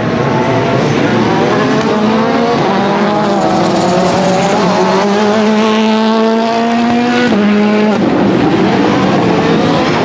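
Rally car engine accelerating hard, its pitch climbing through the revs with a gear change a couple of seconds in, then falling abruptly about seven seconds in as the driver lifts off.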